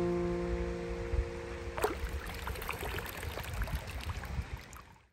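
A last acoustic guitar chord rings out over the first two seconds. Then shallow river water runs and trickles over rocks, with a low rumble underneath, fading out near the end.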